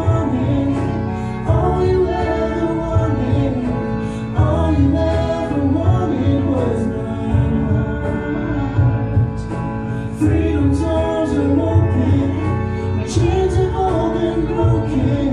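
A woman and a man singing a gospel duet into microphones over an instrumental accompaniment with a low bass, amplified through a PA system.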